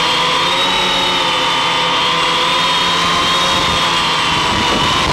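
Electric motors and propellers of a multirotor octocopter whining steadily in flight, the pitch wavering slightly, then starting to fall at the very end as the motors spin down.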